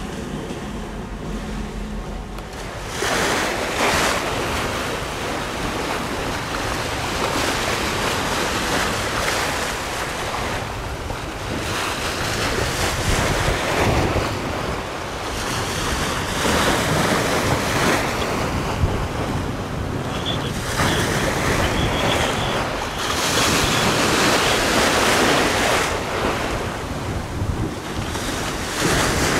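Strong wind buffeting the microphone beside choppy water: a loud rushing noise that swells and drops in gusts. A quieter low steady hum lies under the first few seconds before the gusts take over.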